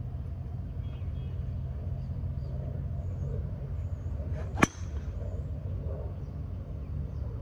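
A golf driver strikes a ball with a single sharp crack about two-thirds of the way in, over a steady low rumble.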